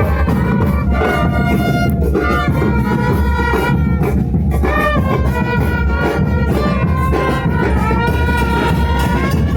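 Loud music: brass horns playing a wavering melody over a heavy, steady low beat.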